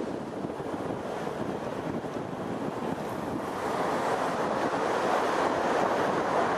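A steady rushing noise with no distinct tones, growing louder about four seconds in.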